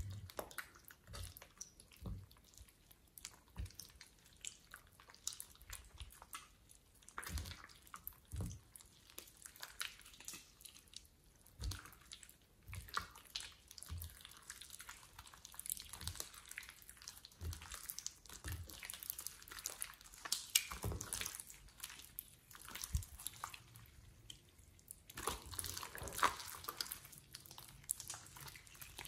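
Thick slime kneaded and stretched by hand in a glass bowl: faint wet squishes with irregular small pops and clicks, busier for a couple of seconds near the end.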